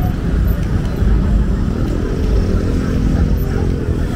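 Busy road traffic close by: motorcycles and cars running past with a steady low rumble. One engine's drone stands out from about halfway through.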